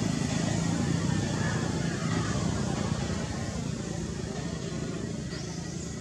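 A motor vehicle's engine running steadily and slowly fading away. A couple of short, high chirps come near the end.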